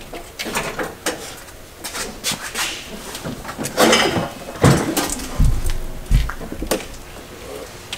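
Scattered clanks and knocks of metal parts, with a few heavy low thumps in the second half, as the Corvette's engine, transmission and cradle come down out of the car onto a wheeled dolly.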